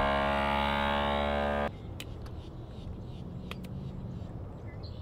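Vacuum sealer's pump running with a steady hum, then cutting off abruptly about two seconds in. After that there is only a low background with a few light clicks.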